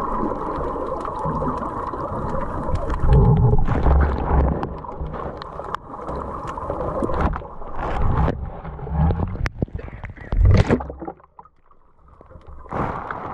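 Muffled water noise heard through a submerged camera, with sloshing and several low thumps as the swimmer moves through the water. Near the end it falls almost quiet for a second or two, then the water noise comes back.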